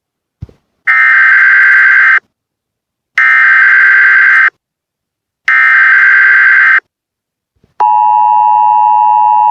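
Emergency Alert System tones: three bursts of SAME header data, each about a second and a half long with about a second's gap between. About eight seconds in, the steady two-tone EAS attention signal begins.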